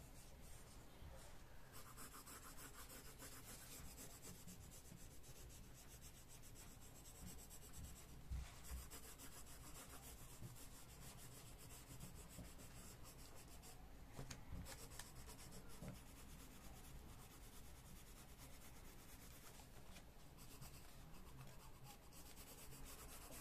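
Coloured pencil scribbling back and forth on a colouring-book page: faint scratching of quick, closely packed strokes.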